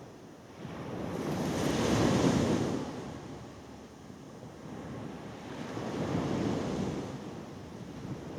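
Sea waves breaking on a beach: a large wave surges in and peaks about two seconds in, then fades, and a smaller one swells and falls around six seconds in, with the wash of surf in between.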